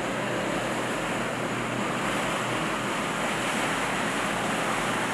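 Steady rushing of harbour water and wind buffeting the microphone, with no distinct events.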